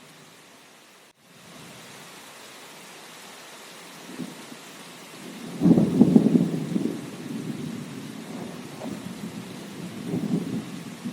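Steady rain hiss with a roll of thunder that breaks in about halfway through, rumbles for a few seconds and swells again near the end. The rain cuts out for a moment about a second in.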